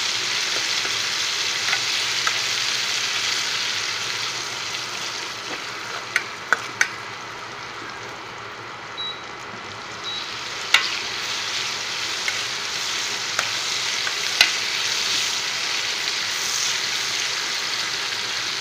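Sliced onions sizzling in hot oil in a stainless steel frying pan, being stirred with a spatula that clicks and scrapes against the pan a few times. The sizzle eases for a few seconds in the middle and then picks up again.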